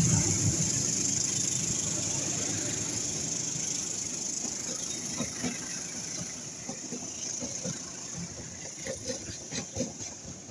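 Indonesian passenger train's coaches rolling past close by: a steady rumble and high hiss that fades, with sharp wheel clicks over the rail joints in the second half.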